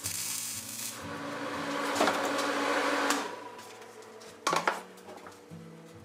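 MIG (wire-feed) welding arc crackling and hissing for about three seconds, then stopping. A couple of sharp metal knocks follow a little over a second later.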